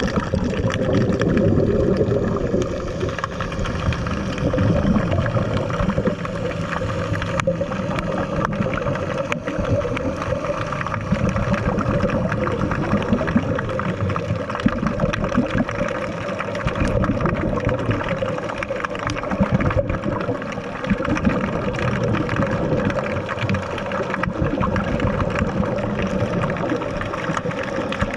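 Muffled underwater sound picked up by a diving camera: steady water noise with irregular gurgling and a constant low hum underneath.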